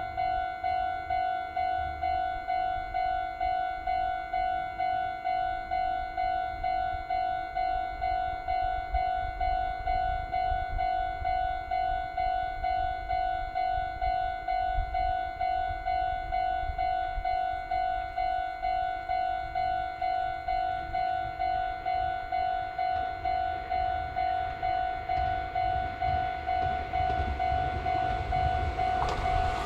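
Japanese railway level-crossing warning bell ringing steadily, about two electronic dings a second, signalling a train on its way. Right at the end the rising noise of the approaching train starts to come in.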